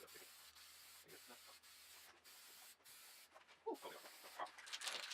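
Faint hiss of an aerosol spray can spraying primer, strongest in a short spell near the end. A brief voice-like sound comes a little under four seconds in.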